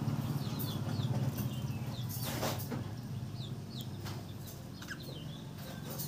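Budgerigars chattering in many quick, short chirps, some rising and some falling in pitch, over a low steady hum.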